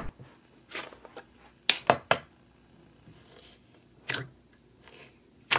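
Thick, glossy, stretchy slime being pressed and poked by fingers in a plastic tub, giving a series of short, sharp bubble pops, about seven spread out, the loudest near the end.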